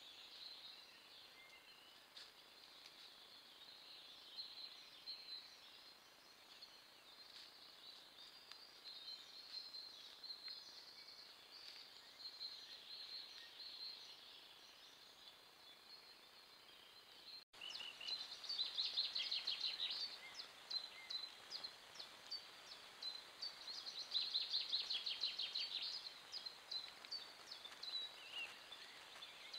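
Small songbirds singing and chirping, faint and high-pitched. After a sudden cut about two-thirds of the way through, the songs are louder, with quick rapid trills coming twice.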